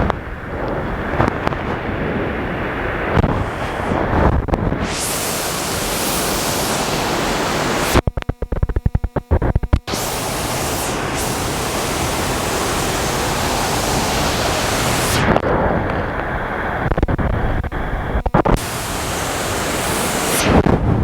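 Waterfall rushing and pouring close by, a loud steady roar of water. About eight seconds in the sound breaks up and cuts in and out for a couple of seconds.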